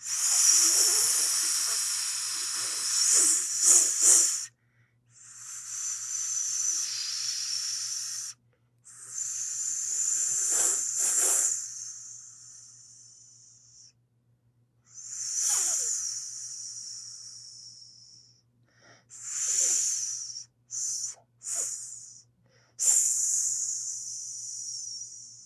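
Snake hissing in a series of about eight separate hisses, several long ones lasting two to five seconds and a few short ones near the end.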